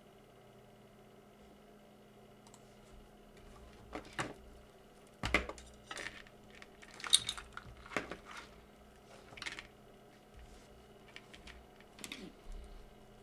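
Scattered clicks, knocks and light clatter of small hard tools and parts being picked up and set down, the loudest two about five and seven seconds in, over a faint steady electrical hum.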